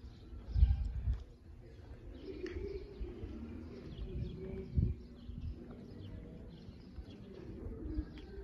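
Birds: a dove cooing in low, steady notes, twice, with small birds chirping. A few low thuds on the microphone, the loudest about half a second in.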